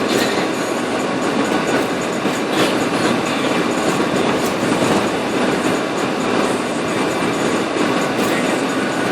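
Steady rumble and hiss of a 1998 Dodge Durango driving in four-wheel drive on a snow- and slush-covered road, with scattered small clicks.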